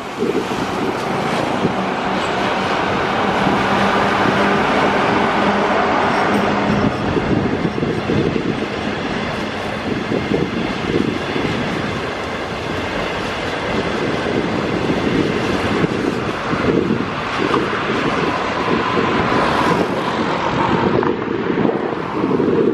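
Electric passenger train, an SS7E locomotive and 25T-series coaches, passing at speed: the wheels clatter over the rails in a dense rolling noise, with a steady low hum in the first several seconds.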